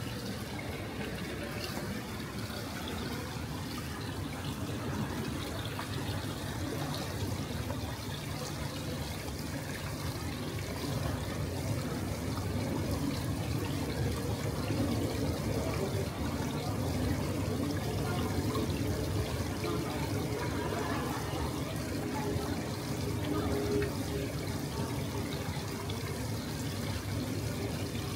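Steady rush of running water, growing a little louder through the middle.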